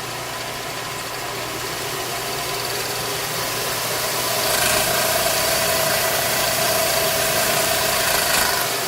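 Antique Wade lathe running under power through its variator speed drive, a steady machine hum. About four and a half seconds in it gets louder and a steady whine joins it.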